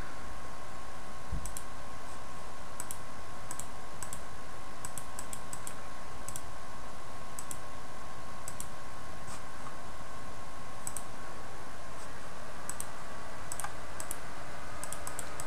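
Scattered light clicks of a computer mouse and keyboard being worked, irregularly spaced, over a steady background hiss with a faint steady tone.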